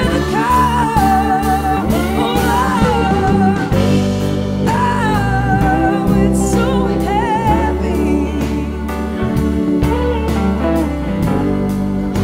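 Live blues-rock band playing: a woman's lead vocal with long held, wavering notes over electric guitars, bass, keyboard and a steady drum beat.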